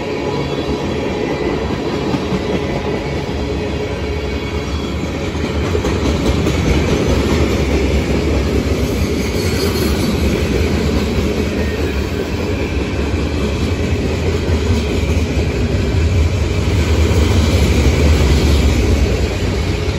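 Freight cars of a CSX manifest train rolling past close by: a steady, loud rumble of steel wheels on the rails with clatter over the rail joints, swelling a little twice as heavier stretches of the train go by.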